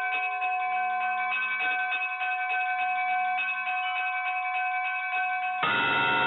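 Bells pealing: many quick strikes over several lingering ringing tones. About five and a half seconds in, the sound turns suddenly fuller and deeper.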